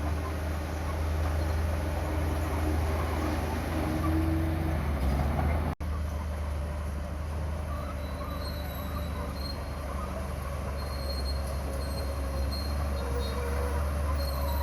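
Crawler bulldozer's diesel engine working with a steady deep rumble, its steel tracks giving thin high squeals. The sound drops out for an instant about six seconds in.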